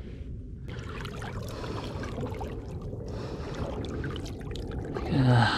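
Water trickling and splashing beside a small boat. About five seconds in, a short grunt-like voice sound.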